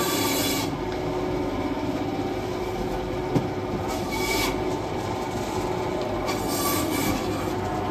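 Steady background din of a market hall meat stall, with one sharp knock about three and a half seconds in.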